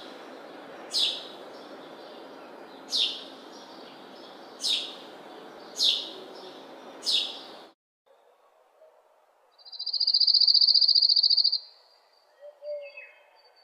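Onions sizzling steadily as they fry in oil, while a bird chirps repeatedly, about once every one to two seconds. A little under eight seconds in, the sizzle cuts off, and after a pause a loud, high, fluttering trill sounds for about two seconds, followed by a few faint chirps.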